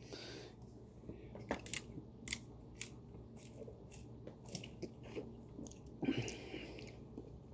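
Soft mouth sounds of a man sipping soda through a straw from a can: faint clicks, smacks and swallows, with a louder breathy sound about six seconds in.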